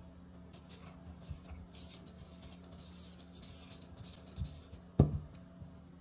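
Light scraping and rustling of kitchen preparation, then a soft thud and a sharp knock about five seconds in.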